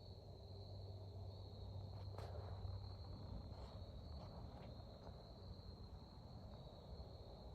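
Crickets trilling, a steady single high note, faint, with a few soft ticks in the middle.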